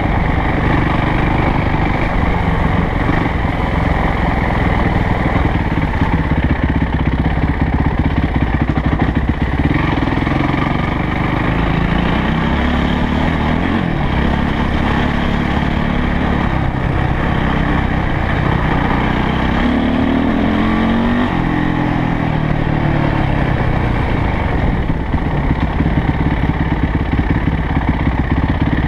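Yamaha YZ450F dirt bike's single-cylinder four-stroke engine running under way, its pitch rising and falling as the throttle is opened and closed, most clearly in the middle of the ride.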